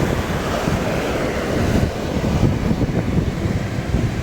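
Wind buffeting the microphone over the steady wash of ocean surf, a constant low rumble.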